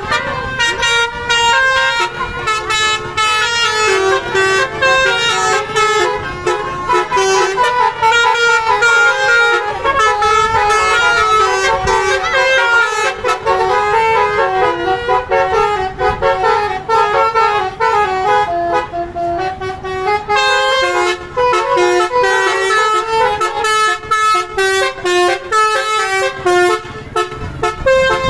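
Basuri telolet multi-tone air horn playing a fast melody of loud, stepped horn notes, one after another without stopping.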